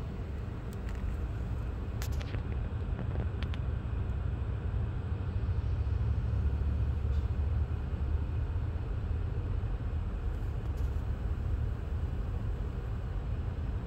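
Diesel locomotive working as a mid-train distributed-power unit (CN 3023 in EJ&E paint, a GE ES44AC) rolling past: a steady low rumble that swells in the middle as it passes, muffled from inside a car. A few brief clicks come about two and three and a half seconds in.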